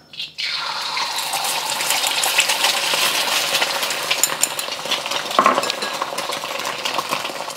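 Beaten eggs sizzling and crackling in hot oil in a well-seasoned wok, starting abruptly as the egg is poured in and then holding steady. The wok was heated until it smoked, so the egg fries hard as soon as it hits the oil.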